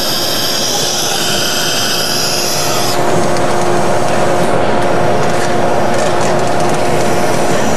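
CNC router with a 5 hp spindle machining a hard plastic orthotic blank, cutting around the part's final holding tabs: a steady spindle whine with a constant machining noise. A higher hissing layer cuts off suddenly about three seconds in, and the whine runs on.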